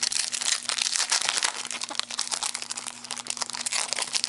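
Foil wrappers of 2012 Certified football card packs crinkling as the packs are handled and torn open, a dense run of rapid crackles.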